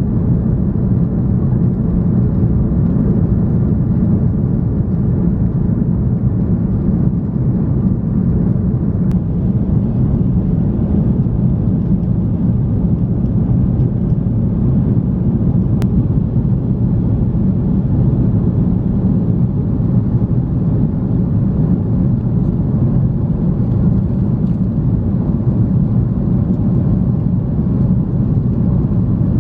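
Steady low roar of an Airbus A330-300 airliner heard inside the passenger cabin: engine and airflow noise.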